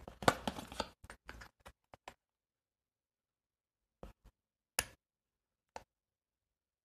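A stiff hand-held hole punch being worked through sturdy card tags: a cluster of small clicks and paper rustles in the first two seconds, then a few single clicks later on.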